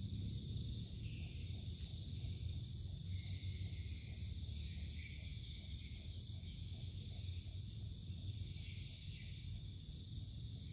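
A night chorus of insects trilling steadily in several high-pitched tones, over a low, steady rumble.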